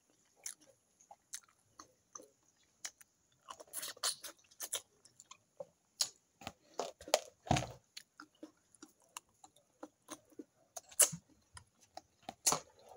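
Close-up sounds of a person eating fish and farofa by hand: irregular chewing with small wet clicks of the mouth, and a dull thump about seven and a half seconds in.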